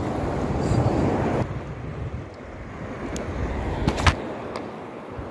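Steady outdoor rush of wind and surf, louder for the first second and a half, then easing. A few sharp clicks or knocks, two of them close together about four seconds in.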